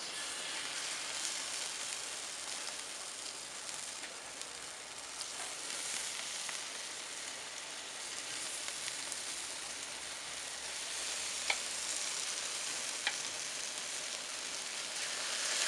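Marinated pork chops sizzling steadily as they are laid one after another on a hot stainless steel grill grate over charcoal. A few short clicks come through the sizzle.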